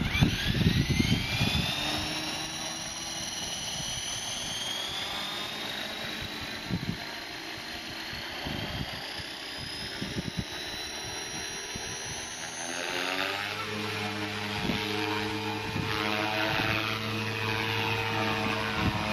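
Walkera V450D03 electric RC helicopter spooling up: the whine of its brushless outrunner motor rises steadily in pitch as the rotor gains speed. About two-thirds of the way through, a steady low rotor drone joins the whine as the helicopter hovers.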